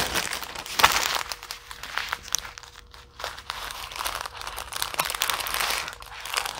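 Clear plastic packaging crinkling as a cellophane bag is pulled off a bundle of small plastic packets of diamond-painting drills and the packets are handled. The loudest crinkle comes about a second in, with softer crinkles after.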